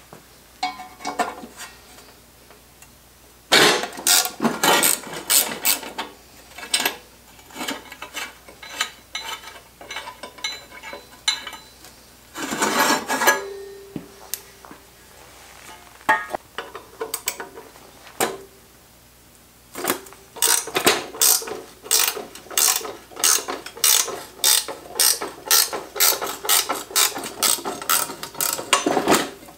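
Ratchet wrench clicking in bursts as the bolts of a metal stool are loosened, with metal parts clinking. A long run of quick, regular ratcheting strokes fills the second half, and a short metallic ring sounds partway through.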